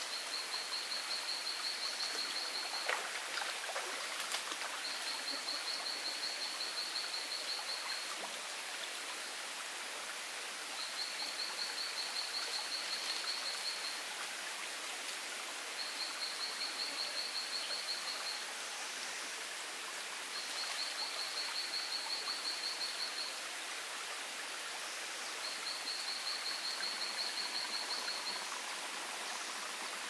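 Steady rushing of a forest stream. A high, pulsing trill of about three seconds recurs every five seconds or so over it. Two sharp knocks come about three and four seconds in.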